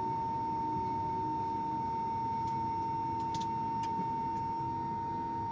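Steady cabin noise inside a parked airliner: one constant high whine over a low rumble, with a few faint clicks around the middle.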